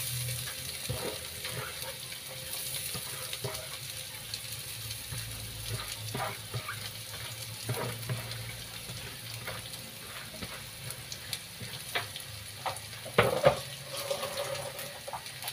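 Shredded bamboo shoots frying in oil in a wok, a steady sizzle with scattered light clicks and knocks, the loudest cluster about thirteen seconds in.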